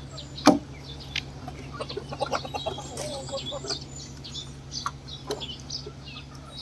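Chickens clucking, with scattered sharp clicks and knocks, the loudest about half a second in, over a steady low hum.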